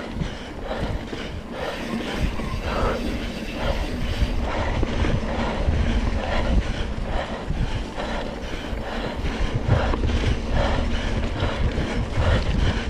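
Heavy breathing of a mountain-bike racer under effort, a rapid rhythm of noisy breaths, over a steady rumble of wind on the microphone.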